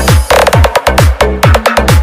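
Loud electronic dance music, a bass-heavy sound-check 'battle mix', with repeated falling pitch sweeps over a driving beat.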